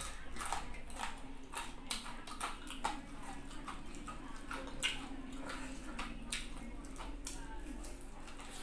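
Close-up chewing and lip-smacking of crunchy fried chicken: irregular sharp crunches and wet mouth clicks several times a second, over a faint steady hum.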